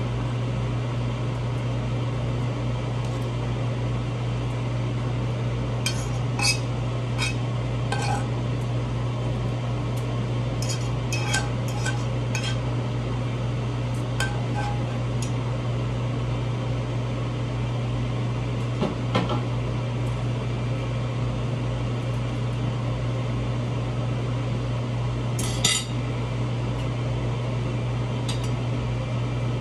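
A utensil scraping and clinking against a frying pan as cooked toppings are served out of it, in scattered clicks with the sharpest clink near the end, over a steady low hum.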